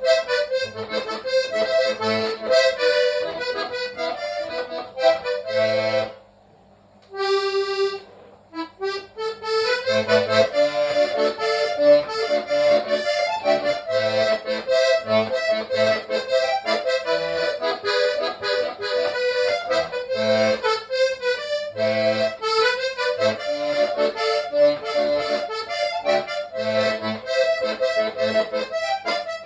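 Hohner Trichord three-row diatonic button accordion playing a melody over separate low bass notes. About six seconds in the playing stops briefly, a single held note sounds, and the tune starts again a couple of seconds later.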